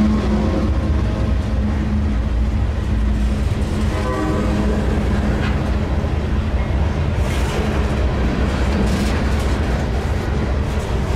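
Freight train of covered grain hoppers rolling past at close range: a steady rumble of steel wheels on rail, with a brief squeal about four seconds in and a few sharp clicks later on.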